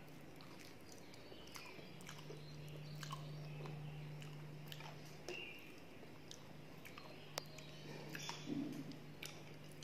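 Soft eating sounds: chewing on mouthfuls of khichuri, with scattered small wet clicks and smacks as fingers mix food on a steel plate, over a steady low hum.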